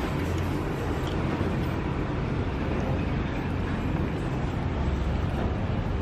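Steady low rumble with an even hiss of background noise, unchanging throughout.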